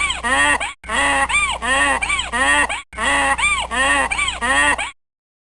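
Domestic waterfowl calling: a run of about four short rising-and-falling calls, the same two-second recording looped three times with short gaps between, cutting off just before the end.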